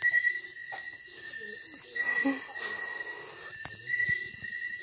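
Night insect chorus, crickets or katydids, trilling steadily at a high pitch and swelling in a regular pulse a little more than once a second.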